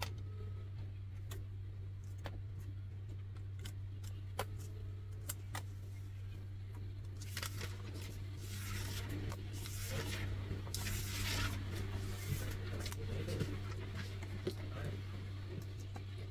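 Hands handling a laptop screen cable and pressing its connector into the motherboard socket: scattered small clicks, with a stretch of scratchy rustling near the middle, over a steady low hum.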